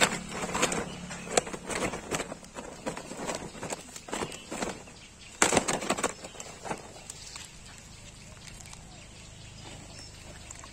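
Caught fish flapping against a sack and the cast net as they are handled and dropped in: a rapid run of slaps and rustles, loudest about five and a half seconds in, then settling to quiet outdoor background.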